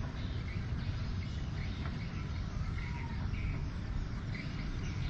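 Faint scattered bird chirps over a steady low rumble.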